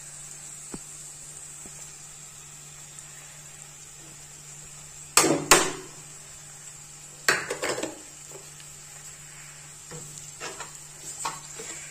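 A steel spoon knocks and scrapes against a steel bowl and the kadhai as ground mawa is tipped in. There are two sharp knocks about five seconds in, another cluster about two seconds later, and lighter clinks near the end. Underneath is a faint steady sizzle of grated potato frying in ghee.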